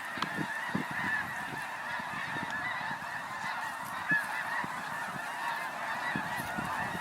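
A huge flock of snow geese calling, a dense continuous din of many overlapping high honks with no single bird standing out.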